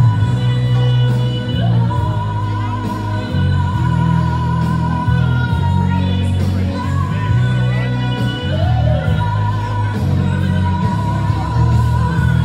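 Music with a singing voice: long held notes over a heavy, pulsing bass line.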